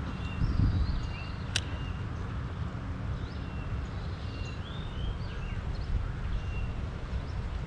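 Birds chirping in short, scattered calls over a steady low rumble, with a single sharp click about one and a half seconds in.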